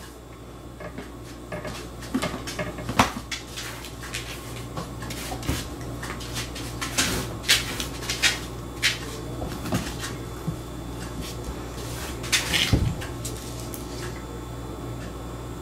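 Plastic food container with a snap-on lid being pawed, bumped and scraped by cats: irregular clacks, knocks and scratches, with thicker flurries about three seconds in, around the middle, and near the end.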